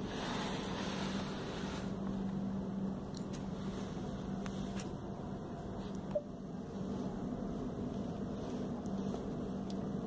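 Steady background hum and hiss with a low drone, and a single short tap about six seconds in.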